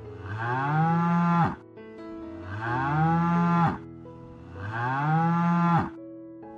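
A cow mooing three times, about two seconds apart; each low call rises in pitch and then cuts off sharply.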